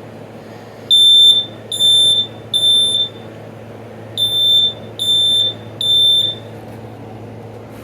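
Household smoke detector sounding on its test button: shrill beeps in two groups of three, with a longer pause between the groups, the temporal-three alarm pattern.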